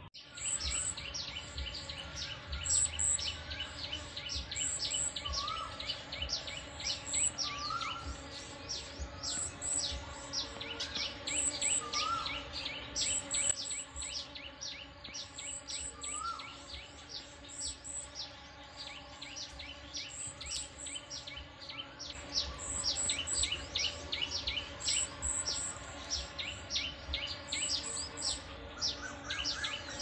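Morning birdsong: a dense, unbroken run of quick high falling chirps. In the first half, a lower, short rising call comes every two seconds or so.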